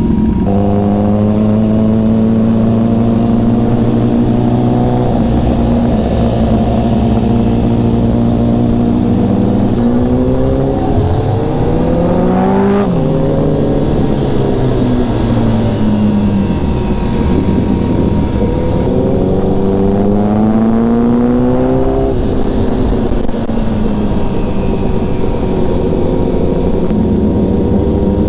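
Motorcycle engine heard from the rider's seat while riding. It holds a steady pitch, climbs about ten seconds in, falls back, then climbs again about twenty seconds in as the rider speeds up and eases off.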